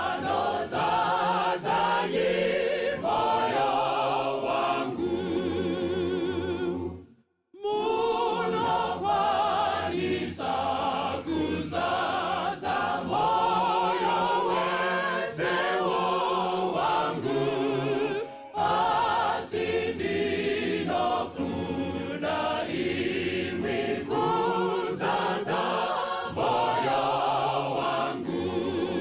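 A group of voices singing a hymn together in harmony. The sound cuts out completely for about half a second around seven seconds in.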